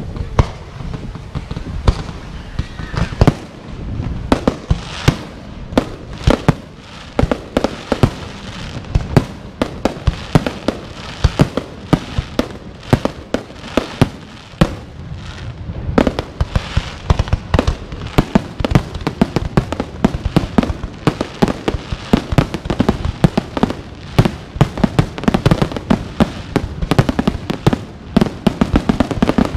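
Fireworks exploding in a rapid, irregular series of sharp bangs and booms, several a second, with rumbling echoes between them; the barrage grows denser about halfway through.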